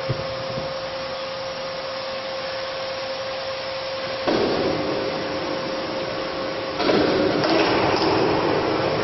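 HBJ S100 welding positioner running, its electric drive giving a steady whine over a noisy hiss; the sound steps louder about four seconds in and again near seven seconds as its control box is switched.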